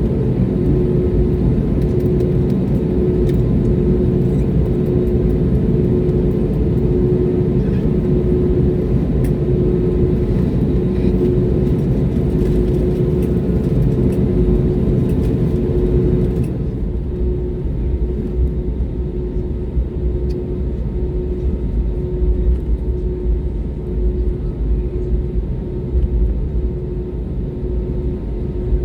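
Cabin noise of an Airbus A320neo taxiing: its CFM LEAP-1A engines at low thrust give a steady hum over a deep rumble from the airframe and wheels. About halfway through, the higher hiss falls away and the rumble becomes more uneven.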